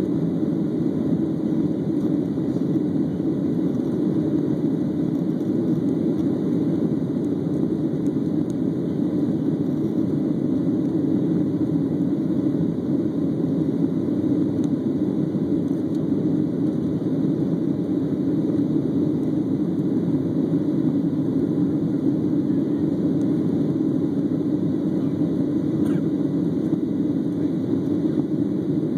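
Boeing 737's CFM56 turbofan engines at climb power just after takeoff, heard inside the cabin as a steady, dull rushing noise that does not change.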